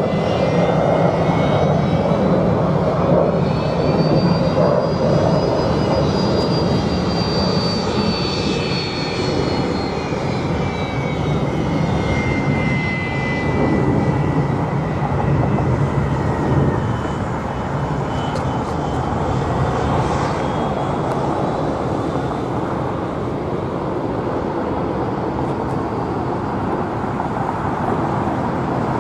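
Boeing 747 freighter's four turbofan engines running as it rolls along the runway: a steady jet roar with a high whine that rises, then falls in pitch over the first dozen seconds or so as the jet passes.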